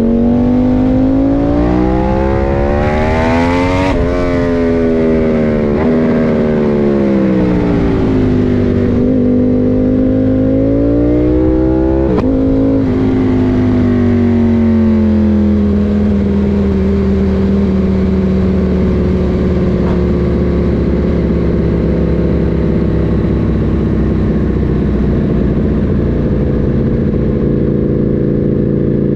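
KTM 890 Duke R's parallel-twin engine under way. Revs climb for the first few seconds, with a gear change at about four seconds, then fall away before picking up again. After another shift at about twelve seconds it runs at steady, slowly dropping revs.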